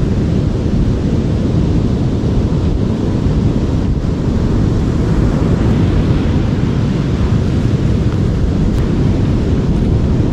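Wind buffeting the microphone in a steady, heavy low rumble.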